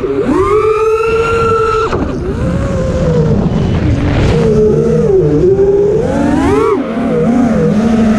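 FPV quadcopter's brushless motors whining loudly, the pitch climbing and dropping again and again as the throttle is punched and cut, with a sharp drop about two seconds in and another near seven seconds, over a low rushing of propeller wash and wind.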